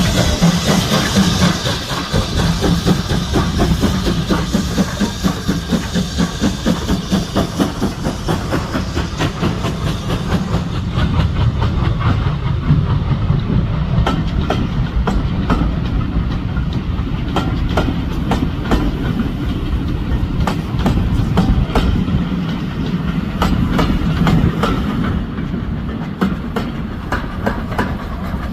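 BR Standard Class 9F 2-10-0 steam locomotive 92134 passing with its train: a loud hiss with fast regular beats at first, fading within about ten seconds into a steady rumble and rhythmic clickety-clack of wheels over the rail joints.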